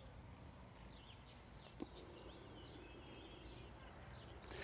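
Faint birds chirping in short, scattered calls over a low steady background hum, with a single soft tap about two seconds in.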